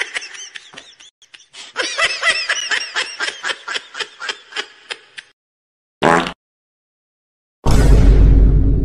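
Meme sound-effect clips played one after another: a cartoonish laugh, then a long run of rhythmic laughing pulses at about four a second that fade out around five seconds in. A short blip follows, then near the end a loud, distorted, bass-heavy noisy blast.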